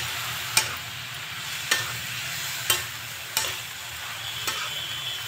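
Chopped spring onions and potatoes sizzling in a metal kadhai while a spatula stirs them, knocking against the pan about five times at uneven intervals.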